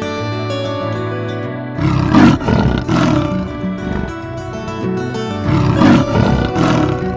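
A leopard roaring in two bouts of rough, pulsing calls, the first about two seconds in and the second near the end, over background music with steady held notes.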